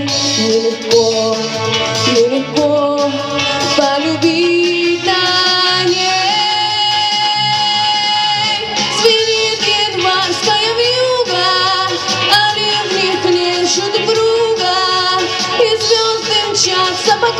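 A female voice singing a slow pop song with instrumental backing, holding long drawn-out notes partway through.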